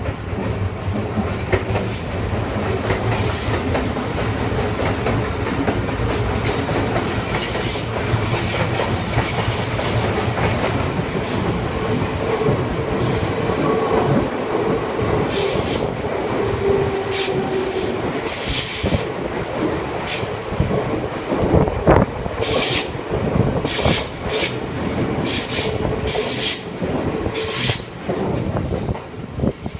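A train running past on the track. First there is a steady rumble of wheels on rail, then from about halfway a run of sharp, irregular clacks as the wheels pass over the rail joints.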